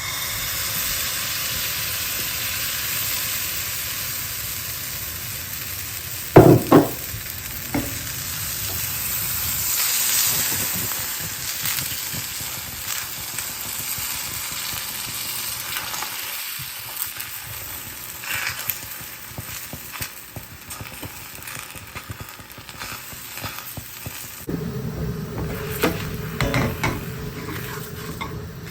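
Food sizzling as it fries in a pan, with stirring. Two loud knocks about six seconds in; near the end the sizzle gets fuller, with utensil clatter.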